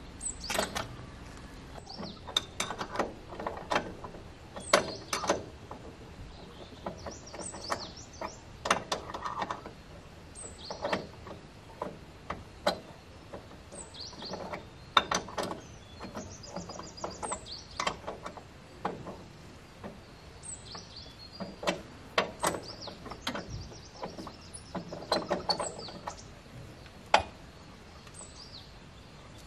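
Irregular metallic clicks and knocks of hand tools working on the bolted steel blades of a rotary tiller, with short pauses between bursts. Birds chirp in the background.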